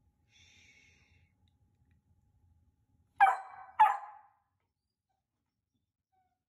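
Bernedoodle puppy barking twice, two short sharp barks about half a second apart, with a short echo off the small bathroom's walls.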